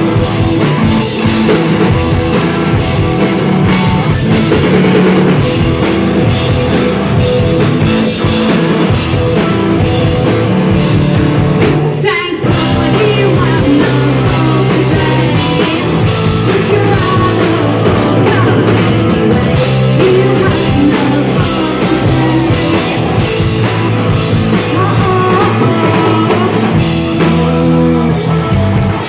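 Live rock band playing loud: electric guitar, bass guitar and drum kit with vocals. The whole band stops for a split second about twelve seconds in, then comes back in.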